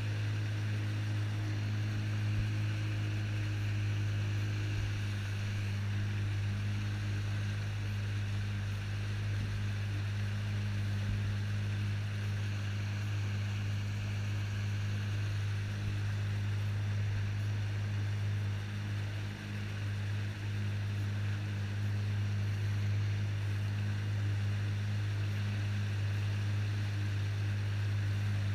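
Jet ski engine running at a steady cruising speed, a constant low drone, with water rushing and hissing along the hull and wake.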